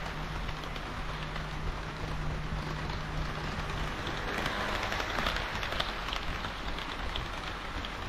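HO-scale model diesel railcars running past on the track: a steady rattle of metal wheels rolling on rail, with a low hum that stops about halfway. A busier clatter of clicks follows as another train passes on the far track.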